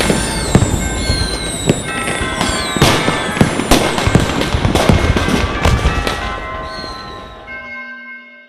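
Fireworks: a dense run of bangs and crackles with falling whistles, fading out about seven and a half seconds in. A ringing bell-like chime starts near the end.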